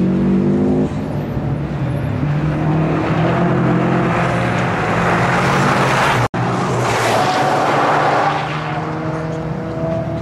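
Toyota GR Yaris rally car's three-cylinder engine driven hard through a cone section, with an abrupt change in engine note about a second in and tyre and engine noise swelling as the car passes. Near the end the engine is heard accelerating again, its pitch rising.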